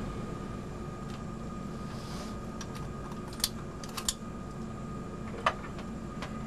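Airbus A320 cockpit ambient noise: a steady hum of fans and air conditioning with a thin steady high tone. A few sharp clicks come through, one about three and a half seconds in, two close together around four seconds, and one more about five and a half seconds in.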